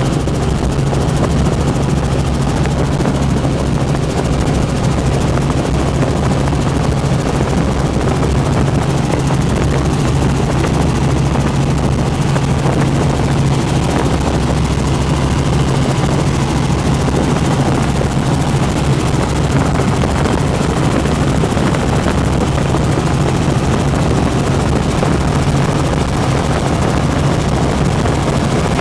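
Helicopter in flight heard from inside the cabin: a steady drone of engine and rotor with a strong, even low hum that does not change.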